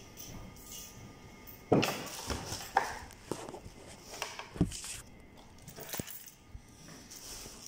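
Curtain fabric rustling as it is handled, with several sharp knocks and clacks, the loudest about a second and a half in.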